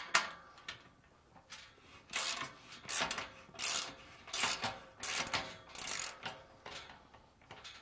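Ratchet wrench loosening the nut on a steel gate's lag-bolt hinge: the pawl clicks through a run of short back-and-forth strokes, about two a second, after a single sharp click at the start.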